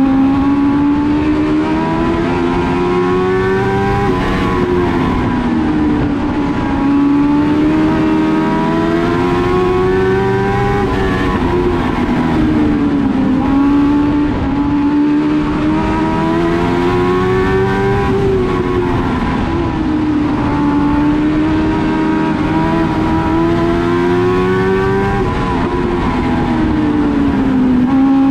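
A race car engine at full race pace, lapping. The pitch climbs steadily and drops sharply four times, about every seven seconds: accelerating down each straight, then lifting for the turns.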